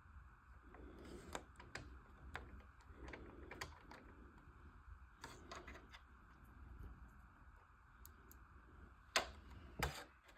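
Scattered light clicks and taps of small plastic model-kit parts being handled and fitted, with two sharper clicks near the end, over a faint steady hum.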